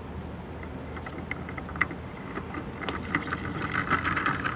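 Grey plastic bulkhead nut being spun by hand onto a threaded plastic bulkhead fitting: a run of small clicks and scraping from the plastic threads and gloves, growing into a denser rasp in the second half. A steady low rumble runs underneath.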